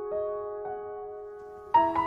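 Slow piano background music: a few notes over a held low tone, with a louder chord struck near the end.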